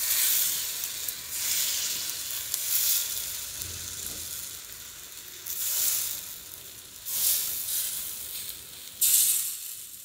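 Thin flour batter sizzling in a hot pan as a steel spoon spreads it into a pancake. The sizzle swells and eases every second or two.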